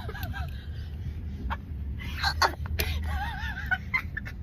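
A woman hiccuping, several sharp hiccups in the second half, part of an uncontrollable bout that a companion suspects is some kind of reaction.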